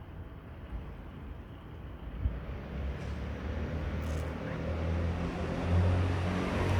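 A motor engine's low rumble growing steadily louder, as something approaches, with a hum that strengthens over the last couple of seconds.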